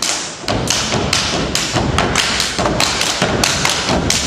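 Step team stepping: feet stomping on a wooden stage floor in a fast rhythm, about four to five sharp hits a second.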